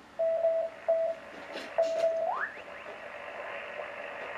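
Shortwave receiver audio from a speaker: a steady beeping tone, keyed on and off three times like Morse code, then sliding quickly up in pitch as the receiver is tuned off it, leaving a steady band hiss with the DSP filter bypassed.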